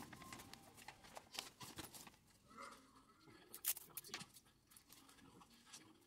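Faint rustling and crinkling of a paper gift bag being handled and folded, with scattered small clicks and one sharper click a little past halfway.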